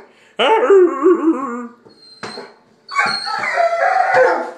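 Black Labrador retriever giving two long, wavering cries, the first starting about half a second in and the second about three seconds in.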